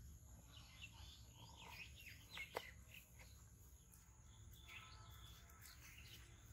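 Faint bird chirps and calls over a low, steady background rumble, with one short, sharp sound about two and a half seconds in.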